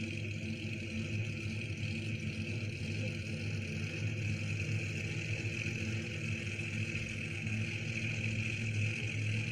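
Car engine sound effect: an engine running steadily, with a low hum and an even higher hiss that hardly change.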